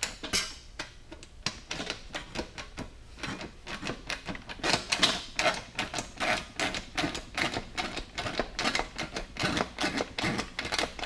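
Deep-throat shrinker clacking over and over, a few strokes a second, as its jaws grip and shrink the sheet-metal flange of a cab-corner panel. The strokes shorten a flange that has gone wavy from being too long, so it can be bent on to 90 degrees without wrinkling.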